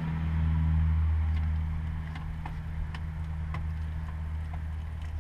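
A low steady motor hum that swells in the first second or two and then eases, with faint scattered metallic clicks as a new oil filter is snugged tight with a wrench under the car.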